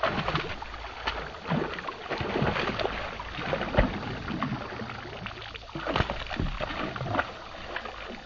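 A hooked fish thrashing and splashing at the water's surface while being played on a rod, a run of irregular splashes with the strongest about four and six seconds in.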